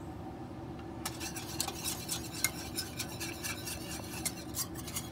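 Wire whisk stirring a liquid sauce in a stainless steel saucepan. The wires click rapidly against the pan, starting about a second in.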